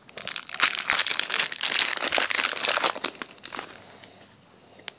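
Foil wrapper of a Pokémon trading-card booster pack crinkling and tearing as it is opened by hand. The crinkling stops about three and a half seconds in.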